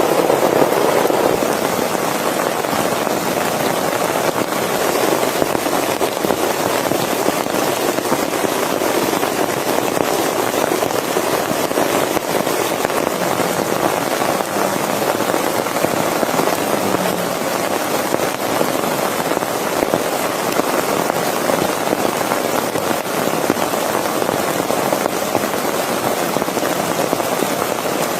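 Steady heavy rain, a dense patter of drops with fine crackle.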